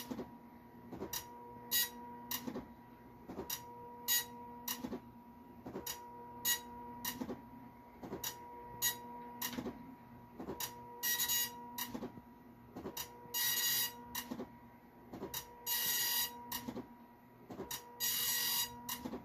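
Dot matrix printer printing: short head strokes about every three-quarters of a second, then from about eleven seconds in longer half-second passes of the print head, each about two seconds apart.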